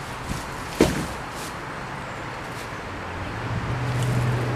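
Brush being pulled and broken by hand, with one sharp snap about a second in. From about three seconds a steady low engine hum comes in and grows louder.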